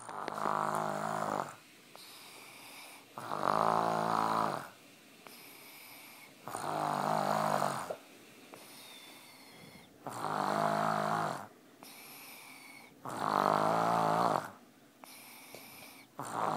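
A sick two-year-old's loud snoring: six long snores, one every three seconds or so, with quieter breaths between.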